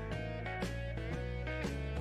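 Background rock music with electric guitar over a steady beat.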